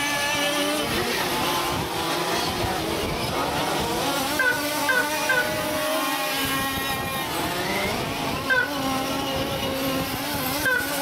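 Several 1/8-scale nitro off-road buggy engines running at high revs together, their pitch rising and falling as the cars brake and accelerate around the track. Short sharp high revs stand out about four and a half seconds in, again at eight and a half seconds, and near the end.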